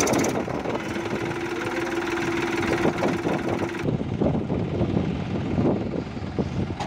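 Massey Ferguson 241 DI tractor's diesel engine idling steadily, with a steady hum in the first few seconds.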